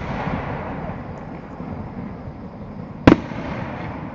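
Aerial fireworks bursting: the crackling, rumbling tail of a burst fades over the first second or two, then one sharp bang about three seconds in.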